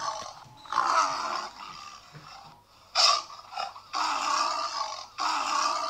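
Tiger-like roars, repeated over and over. Each is breathy and about a second long, with a short, sharp one about three seconds in.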